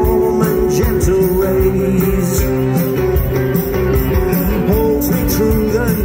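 Rock band playing live: electric guitars, bass guitar and drums in a loud, continuous passage.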